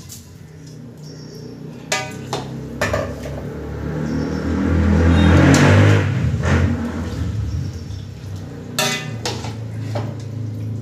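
A metal slotted spoon clanking and scraping against a large steel pot as soaked rice is stirred into the thick liquid of a chicken biryani masala, with sharp ringing knocks about two seconds in and again near the end, and the liquid sloshing loudest midway.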